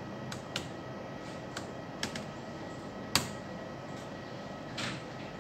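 HP laptop keyboard keys clicking as an IP address is typed into the browser: a few scattered keystrokes, the loudest about three seconds in and a softer, longer one near the end.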